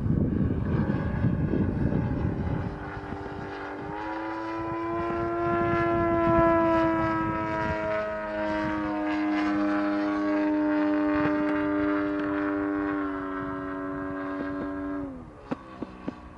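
ZDZ 180 petrol engine and propeller of a large Extra 260 aerobatic model aeroplane in flight. The engine note is rough and noisy at first, then steadies into a clear drone about four seconds in, stepping down slightly a couple of times. Near the end the note falls sharply and a few sharp clicks follow.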